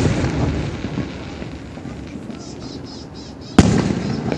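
Aerial fireworks shells bursting: the echoing rumble of one boom dies away with light crackle, then a second sharp boom about three and a half seconds in.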